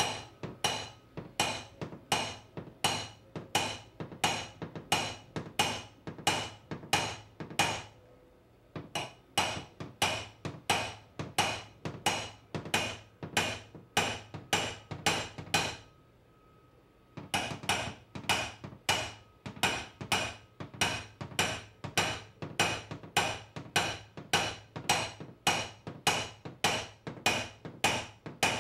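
Hammer tapping a SlapperTapper dent tool held against a car door's sheet metal, light, even, ringing metallic taps at about two and a half a second, in three runs with short pauses about 8 and 16 seconds in. The strikes are meant to send vibration into the thin panel to knock down a high crown at the top of the door.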